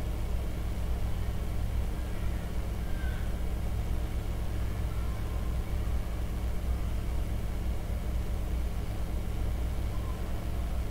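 A steady low hum with no change in level throughout.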